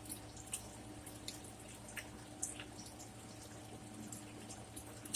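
Faint wet mouth clicks and crunching of someone chewing a crisp microwaved cheese taco shell, in scattered small ticks.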